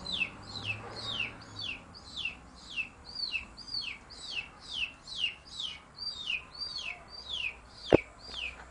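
A boy imitating a baby chick's peeping: a steady run of high peeps, each sliding down in pitch, about two and a half a second. A single sharp knock near the end.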